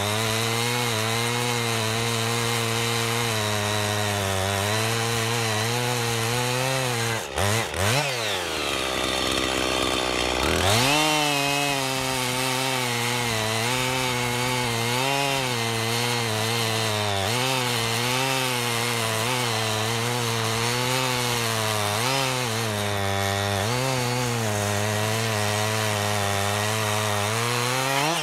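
Gas chainsaw engine running at high revs through a log, its note wavering under load as a chain with the rakers left too high barely bites the wood. About seven seconds in, the revs fall away and climb back up about three seconds later. Near the end the revs drop off as the cut finishes.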